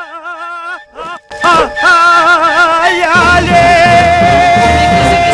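Middle Eastern-style music with a wavering, heavy-vibrato singing voice. It drops out briefly about a second in, then comes back loud, ending on a long held note.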